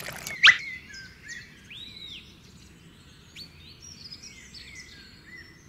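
Birds chirping faintly in the background, with one short, loud falling whistle-like sweep about half a second in.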